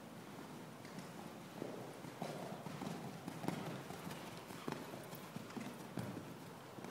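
Hoofbeats of a dressage horse, a five-year-old gelding, trotting on sand arena footing: a run of dull, fairly even hoof strikes, about two a second, that starts about a second and a half in.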